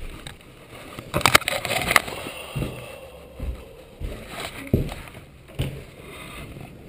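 Footsteps trudging through deep fresh snow, a crunch about once a second, with a louder cluster of crackling crunches about a second in.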